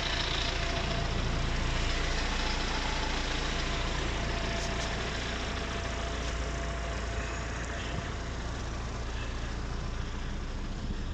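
Tractor engine running steadily as it tows a feed mixer wagon, with a constant rumble and hiss that ease slightly near the end as it moves away.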